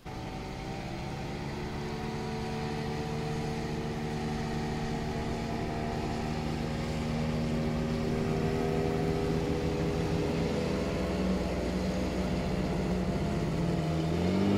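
Motorboat engine approaching slowly at low throttle, growing steadily louder; its note sinks gradually, then climbs near the end as the boat comes closer.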